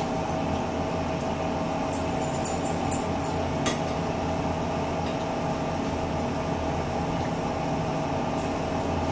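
Metal forks clinking and scraping on dinner plates as people eat, a few sharp clinks with one louder one a little before four seconds in, over a steady appliance hum.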